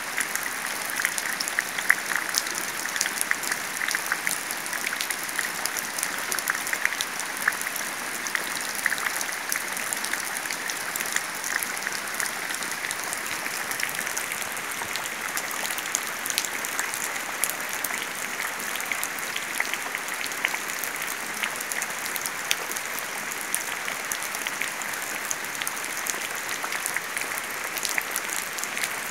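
Rain falling into a shallow puddle, a steady dense patter of drops splashing on the water and raising bubbles.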